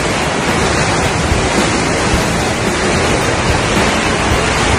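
Steady rush of water sliding through an enclosed water slide tube, mixed with wind noise on the microphone of a camera carried down the slide.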